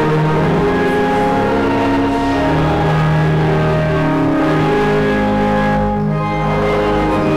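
Hymn music with long held chords that change every second or so.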